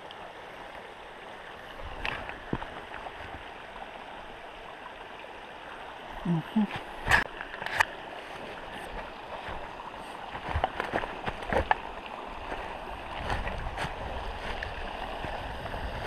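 Steady rush of a small rocky creek, with scattered crunches and clicks of footsteps in dry leaves from about seven seconds in and a brief low human murmur just before.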